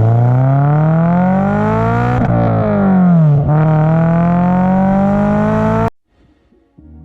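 Car engine revving through its exhaust: the pitch climbs, falls back about two seconds in, then climbs again before cutting off abruptly near the end.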